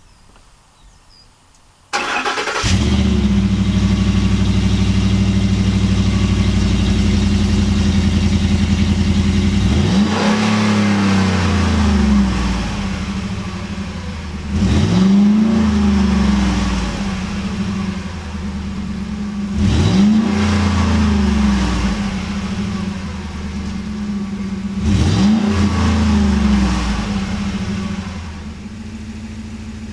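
2012 Ford Raptor's 6.2-litre V8 on its stock exhaust starting about two seconds in and running at a steady fast idle. It is then revved four times, about five seconds apart, each time falling back to idle, and it idles more quietly near the end.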